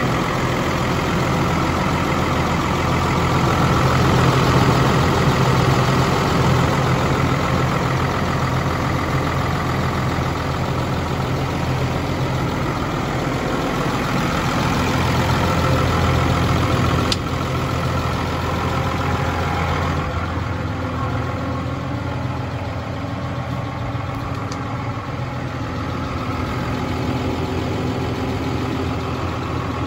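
New Holland T7.270 tractor's six-cylinder diesel engine idling steadily. There is a single click just over halfway through, and from about two-thirds of the way through the engine sounds quieter and more muffled, as from inside the cab.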